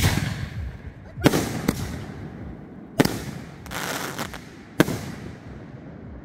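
Aerial fireworks cake firing: about five sharp bangs of shots launching and shells bursting, spread over some five seconds, with a hissing crackle between them.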